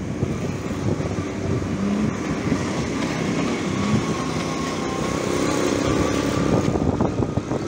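Motorcycle engine running as it rides through city streets, heard from the pillion seat, with steady engine and road noise.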